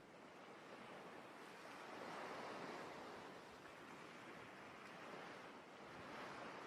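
Faint sea waves washing in, one swell rising about two seconds in and another near the end.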